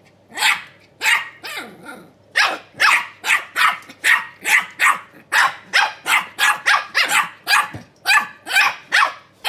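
Two keeshond puppies barking at each other in a rapid string of short, high barks, about two to three a second, with a brief break about two seconds in.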